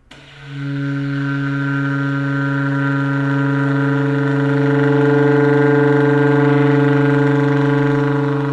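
Baritone saxophone playing a multiphonic: one held, steady chord of several pitches sounding at once, swelling a little around the middle. The chord comes from a cross fingering in which the higher open hole lies near a harmonic, so the tube resonates at more than one pitch.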